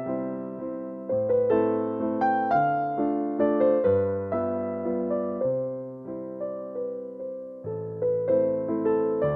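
Background piano music: a gentle melody of struck notes that ring and fade, over a low bass line.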